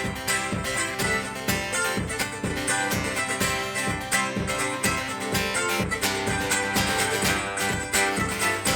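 Acoustic guitar strummed in a steady rhythm, an instrumental passage between sung lines.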